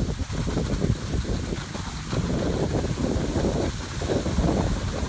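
Wind buffeting a phone microphone while skiing downhill, a gusting rumble, mixed with skis sliding over groomed snow.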